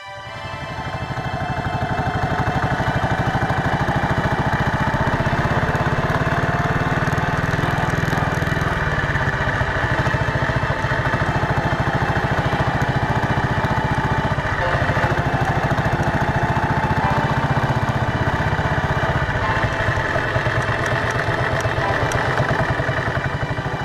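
400 cc Suzuki motorcycle engine, heard from on the bike, running at low road speed with an even, rapid pulsing beat. It swells over the first couple of seconds as the ride gets under way, then holds steady.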